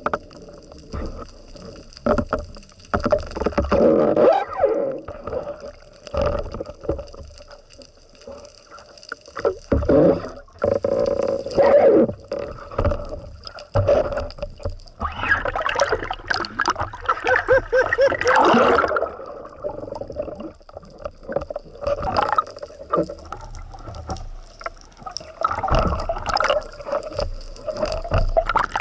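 Water sloshing and gurgling in irregular surges, loudest in a long stretch about halfway through, over a faint steady high tone.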